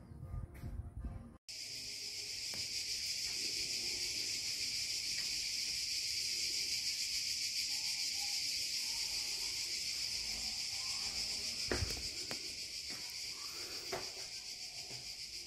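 Dense, steady chorus of cicadas buzzing, starting abruptly about a second and a half in after a brief low rumble. A couple of soft knocks come near the end.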